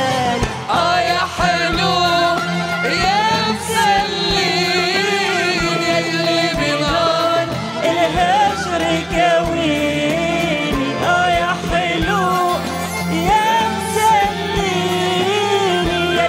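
A woman singing an Arabic song live into a microphone with ornamented, wavering notes, backed by a band playing Middle Eastern music over a steady drum beat.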